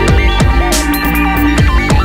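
Electronic dance music with a steady drum beat, cymbal swells and a stepping synth melody.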